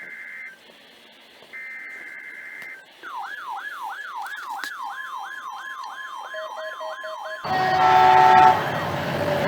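Two short two-note electronic tones, then a siren in a fast yelp, its pitch sweeping up about three times a second, with short beeps near the end. About seven and a half seconds in it gives way to a much louder blast of several steady pitches over noise.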